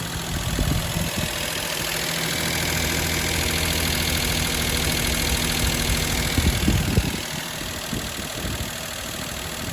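Daihatsu Cast's KF three-cylinder engine idling steadily, with a few louder low knocks about six to seven seconds in.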